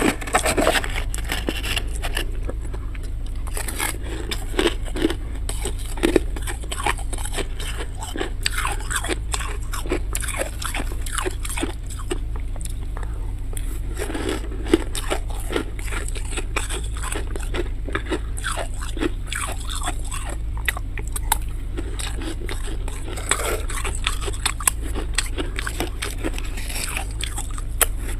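A person biting and chewing crunchy chunks of freezer frost: a long run of irregular crisp crunches over a steady low hum.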